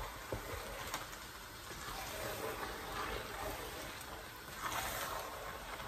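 A wooden spoon stirring thick vegetable okra soup in a metal pot: soft wet mixing, with a few light knocks of the spoon against the pot.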